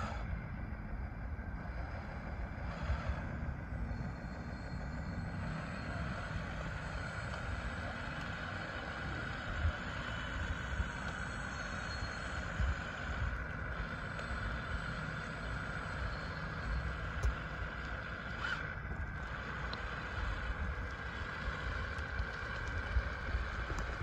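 Radio-controlled DXR2 model bulldozer pushing a heap of gravel: a steady whine from its drive motors and gearboxes over the crunch and scrape of stones rolling in front of the blade and under the tracks.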